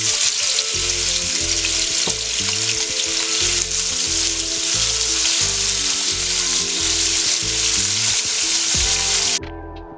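Small koi fish (climbing perch) frying in hot oil: a loud, steady sizzle that cuts off suddenly near the end.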